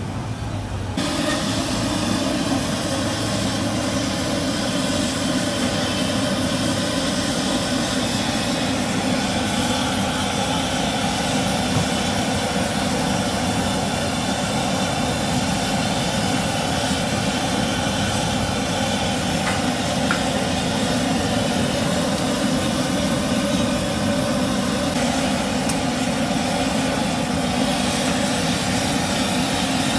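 Jalebi frying in a wide karahi of hot oil: a steady sizzle over the roar of the gas burner beneath it, starting about a second in.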